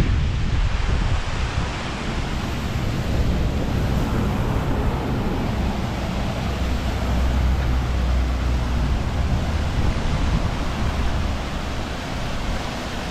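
Wind buffeting the microphone in heavy low gusts over the steady rush of a mountain stream's waterfalls.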